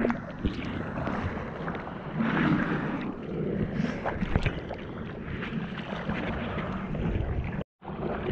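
Seawater sloshing and splashing right at a waterline GoPro in the surf, with wind buffeting the microphone. A split-second gap of total silence comes near the end.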